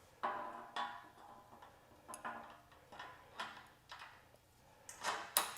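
Metal clinks and knocks of the Mule Cart's grab-handle tubes being slid into the cart frame, with spring push pins clicking into place. About nine separate sharp clinks, several ringing briefly, the loudest near the end.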